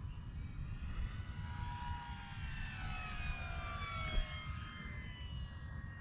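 Electric motor and propeller of an E-flite Air Tractor 1.5 m RC plane whining in flight, its pitch sliding steadily down. Gusty wind rumbles on the microphone, with one stronger thump a little past four seconds in.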